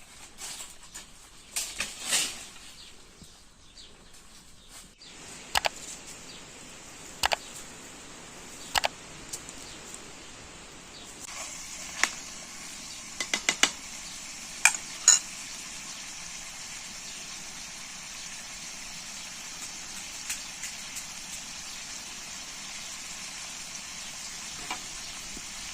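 Pots and utensils knocking and clinking a handful of times, then from about eleven seconds in a steady sizzle of food frying in a pan.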